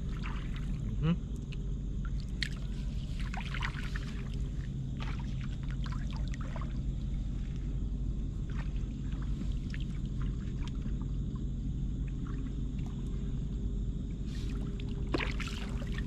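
Shallow seawater sloshing and splashing in short bursts as a person wades and prods the weedy bottom with a long wooden stick, over a steady low hum.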